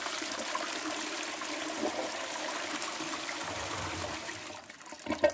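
Toilet flushing: water rushing steadily through the bowl, dying away about four and a half seconds in. A short louder sound comes near the end.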